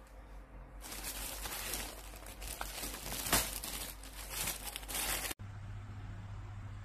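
Plastic-wrapped stack of disposable air fryer paper liners crinkling under a hand, loudest a little past the middle. It cuts off abruptly about five seconds in and gives way to a steady low hum.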